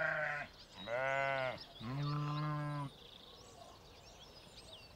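Sheep bleating: three long bleats in a row, each lasting about a second, in the first three seconds.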